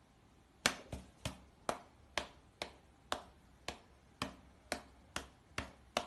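About a dozen sharp taps, each dying away quickly, in a fairly even rhythm of about two a second.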